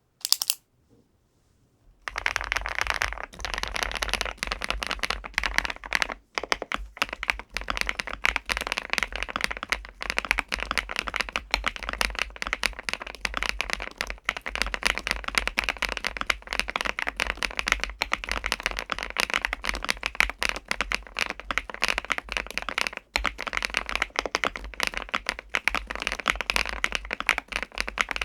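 Fast, continuous typing on a KiiBOOM Phantom81 Lite mechanical keyboard, with light, smooth Mochi switches on a PC plate in a foam-filled ABS case. A dense run of key clicks starts about two seconds in, after one short sound right at the start.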